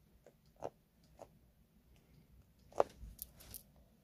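Eurasian eagle-owl smacking its beak and tongue after eating meat: several short, faint clicks, the loudest nearly three seconds in.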